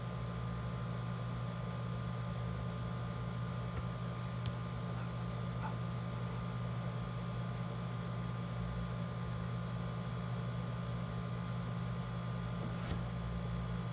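Steady low room hum with a faint high tone over it, with two faint ticks, about four and thirteen seconds in.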